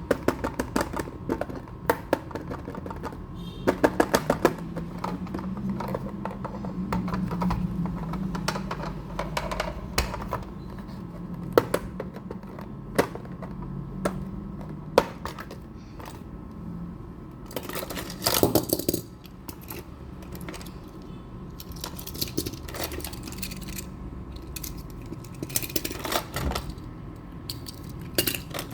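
Small hard clicks and taps from handling miniature diecast toy trucks, some in quick rattling runs as parts are moved, with a couple of longer scraping rustles about two-thirds of the way through and near the end, over a faint low hum.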